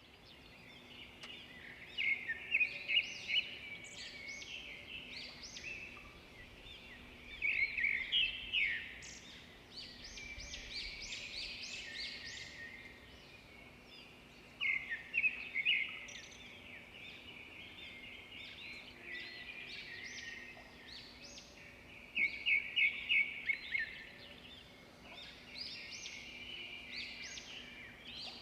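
Several birds singing and chirping together, one of them breaking in every several seconds with a loud burst of rapid repeated notes. A faint steady low hum runs underneath.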